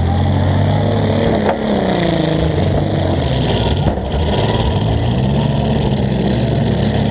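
Compact demolition derby car's engine, heard from inside the car, running loudly and revving up and down as the car maneuvers.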